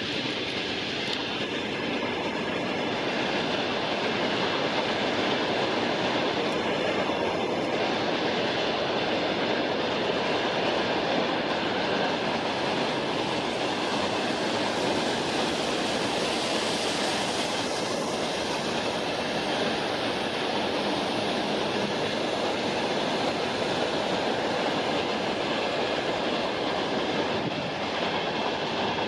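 A steady, continuous rushing noise with no clear rhythm, holding the same level throughout.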